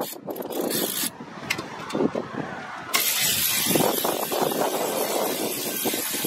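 Cordless power tool driving a bolt on a car's front brake caliper: a few seconds of light handling clatter, then the tool's motor starts abruptly about three seconds in and runs steadily for about three seconds.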